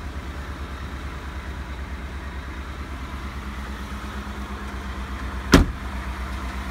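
2018 Ford F-150 XLT's engine idling steadily, with the truck's driver's door slammed shut once about five and a half seconds in.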